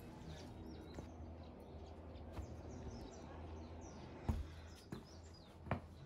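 Faint outdoor ambience: a steady low rumble with small birds chirping faintly, and two sharp knocks near the end.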